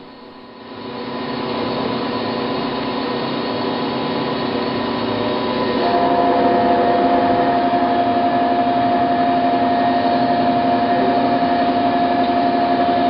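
A Chevalier FSG-1632 surface grinder running with a steady machine hum that comes up about a second in. About six seconds in it grows louder as a steady higher whine joins it, with the grinding wheel spinning.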